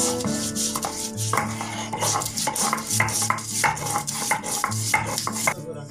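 A stone roller rubbed back and forth over a flat stone grinding slab (sil-batta), a quick, regular run of scraping strokes at about three a second.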